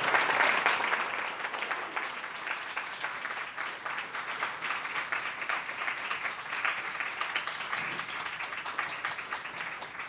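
Audience applauding, many hands clapping at once, loudest in the first second or so and then holding steady.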